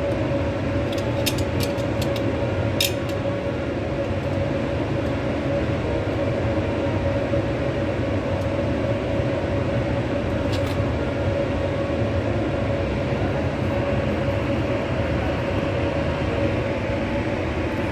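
Steady mechanical drone with a constant hum, unbroken throughout, with a few light clicks in the first few seconds and once about ten seconds in.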